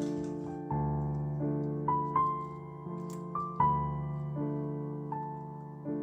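Background piano music: a slow melody with a new note struck about every three quarters of a second, each one fading away.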